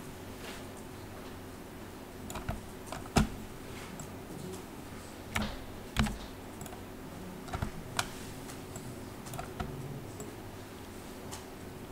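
Scattered clicks of a computer keyboard and mouse: single sharp taps and short clusters, irregularly spaced with pauses between, over a faint steady hum.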